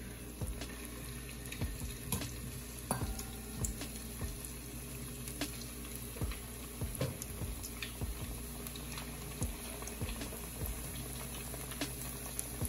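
Green plantain chunks frying in hot vegetable oil in a small skillet, in the first fry for patacones. The oil bubbles with a steady sizzle, broken by frequent short sharp clicks and pops.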